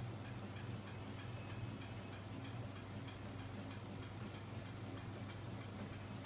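Magnet-driven flywheel and crankshaft rig running under its small 24 V DC electric motor: a steady low hum with light, regular ticking from the turning mechanism, about three ticks a second.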